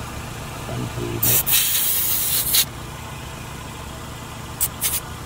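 Air hissing from a car tire's valve stem as a digital tire pressure gauge is pressed onto it: one loud hiss of about a second and a half, then a few short spurts near the end.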